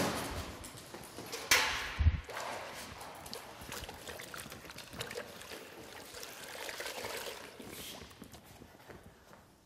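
String mop being dipped and wrung in a metal bucket of water: water sloshing and trickling, with a sharp clank about a second and a half in and a low thump just after.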